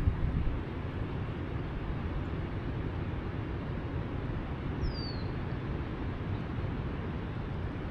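Steady wind blowing through pine trees and over the microphone, with one short falling whistle from a bird about five seconds in.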